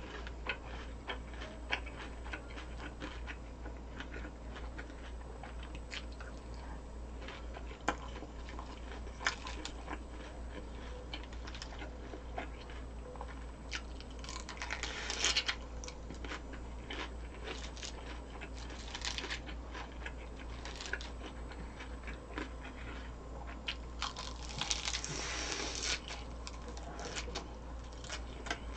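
A person biting and chewing crunchy food: scattered sharp crunches and mouth clicks, with two longer spells of louder crunching, one about halfway through and one a few seconds before the end.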